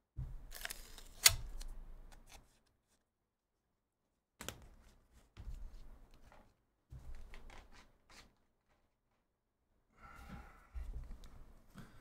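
Faint, intermittent clicks and rustles of handling at a desk, in several short spells with silent gaps between, with one sharp click about a second in.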